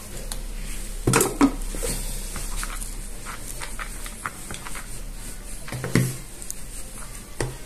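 Kitchen handling noise: a utensil knocking and scraping in a plastic bowl of steamed vermicelli, with a few sharper knocks about a second in, around six seconds and near the end.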